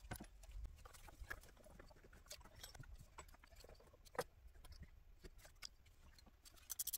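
Faint scattered clicks and light knocks from hands handling parts at the top of a truck engine, one a little louder about four seconds in. Near the end a quick run of fast, high ticks begins.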